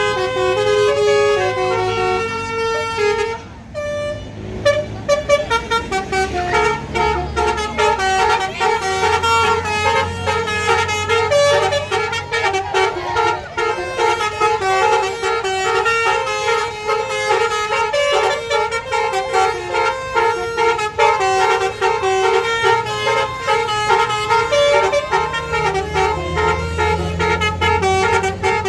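Bus Basuri telolet horns playing rapid multi-note melodies, several tunes overlapping, with a short break about four seconds in. A bus engine rumbles underneath at times.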